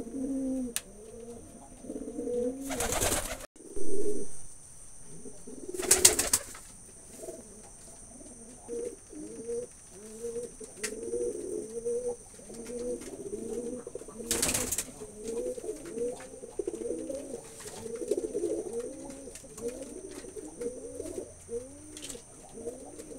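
Several domestic pigeons cooing at once, their low rising-and-falling coos overlapping continuously, with a few brief noisy bursts at about three, six and fourteen seconds in.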